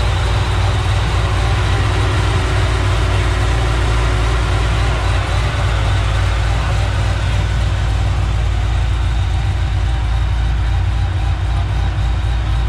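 Whipple-supercharged V8 of a 2011 Camaro SS idling steadily, with a deep rumble.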